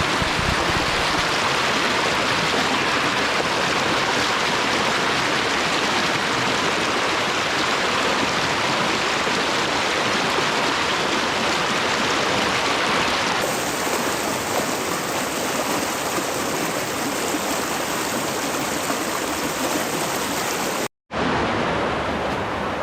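Fast-flowing creek running high with snowmelt: a steady rush of water. The sound changes abruptly about halfway through and cuts out for a moment near the end.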